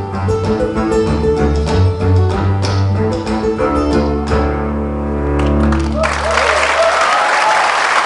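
Ukulele and cello finishing a folk tune, the cello holding a long final low note; about six seconds in, an audience breaks into applause and cheering.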